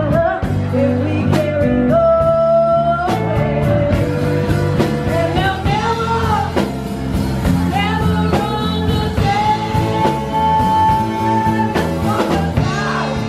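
Live band playing: a woman sings lead over electric guitar, electric bass and a drum kit, holding long notes, one of them near the end.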